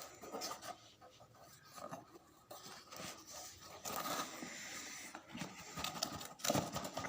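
Packaging of a tripod being handled and opened: irregular rustling, rubbing and scraping.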